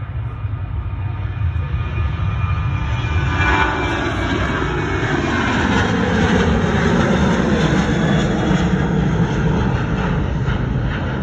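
Boeing 737 jet airliner's engines at takeoff thrust as it lifts off and climbs past. The roar builds to a peak and its pitch drops as the aircraft goes by.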